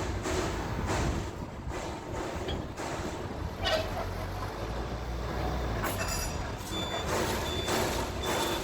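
TCM forklift's engine running under load, with a reversing alarm beeping repeatedly in the second half.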